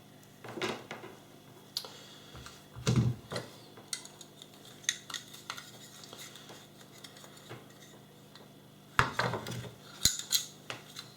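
Intermittent clicks and short scrapes of a small metal hand tool working on a power cord's outer sheath, as the cable is stripped. The loudest cluster comes about nine to ten and a half seconds in.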